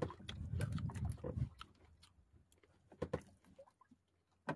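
A person chewing grilled squid with wet mouth noises, fullest in the first second and a half, followed by a few soft clicks.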